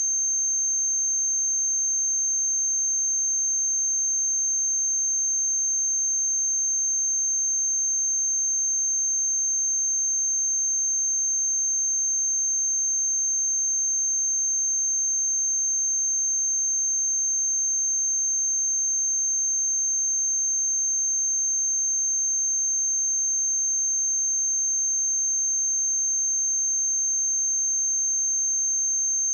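A steady, high-pitched 6335 Hz pure sine-wave test tone, held at one pitch and level without a break.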